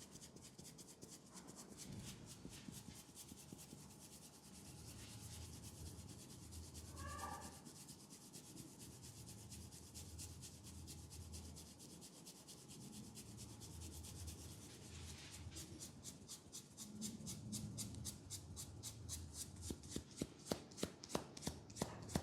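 Hands rubbing skin in fast, even strokes during a head and neck massage. Over the last couple of seconds louder, sharper clicks come about three a second.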